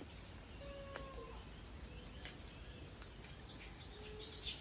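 Steady high-pitched insect chorus of tropical crickets or cicadas, with a few faint whistled bird notes about a second in and again near the end.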